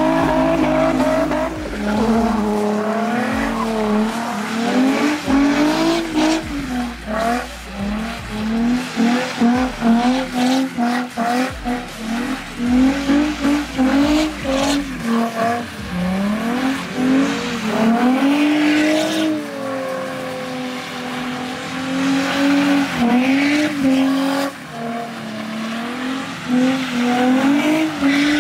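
Nissan 350Z's 3.5-litre V6 revving up and down again and again as the car drifts in circles on wet asphalt, with tyres hissing as they slide. The revs ease to a steadier note a little past the middle, then pick up again.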